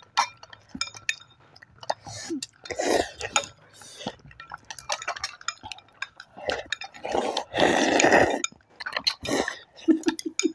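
Wooden chopsticks clicking and scraping against glass bowls as instant noodles are eaten quickly, with two longer, louder stretches of slurping, about three seconds in and again around seven to eight seconds in.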